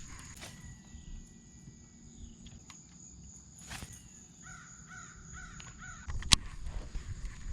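A crow cawing, a quick run of short caws about four and a half seconds in, over a steady high insect drone. A single sharp knock comes about six seconds in.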